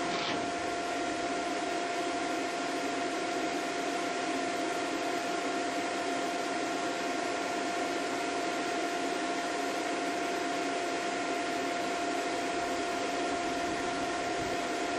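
Homemade foundry furnace firing while melting cast iron: the steady rushing noise of its burner and air blower, with a constant whine over it.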